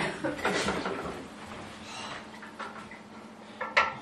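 Soft knocks of footsteps and handling, then near the end sharp clanks of metal on a stainless steel cooking pot, ringing briefly.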